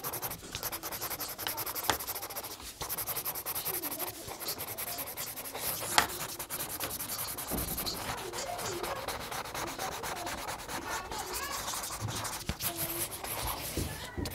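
Alcohol marker tips scratching and rubbing across paper in quick back-and-forth strokes as colour swatches are filled in, with a couple of sharp clicks, the loudest about six seconds in.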